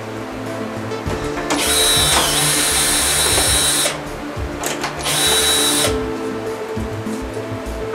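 Cordless drill/driver spinning out the screws that hold a flat-screen TV's plastic back cover. The motor whines in two runs: a longer one of about two seconds that starts a second and a half in, and a short one under a second long about five seconds in.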